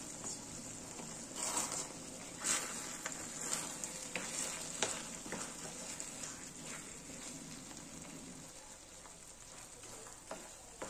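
Food sizzling in a frying pan, stirred now and then with a utensil that scrapes the pan several times. The sizzle eases a little in the last couple of seconds.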